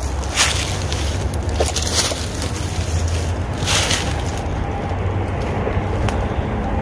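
Footsteps crunching through dry fallen leaves, a few loud steps in the first four seconds, then fading as the walking slows. Under them runs a steady low rumble.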